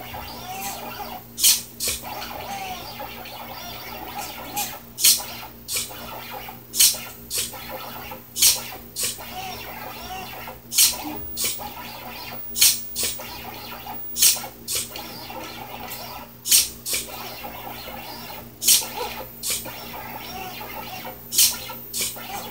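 4xiDraw pen plotter at work: its stepper motors whir with short pitch glides as the pen carriage moves in small strokes. Sharp taps come in pairs about half a second apart, a pair every two seconds or so, as the SG90 micro servo drops the pen onto the paper and lifts it again.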